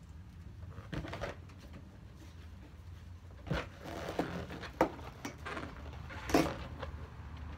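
Handling noises as rubber balloons are fastened to a metal folding chair: a scattering of short knocks, rubs and rustles, the loudest near the end, over a low steady hum.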